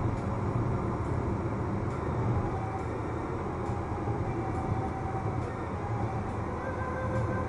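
Car driving at road speed, heard from inside the cabin: a steady drone of engine and tyre noise, strongest in the low rumble, with a faint steady whine above it.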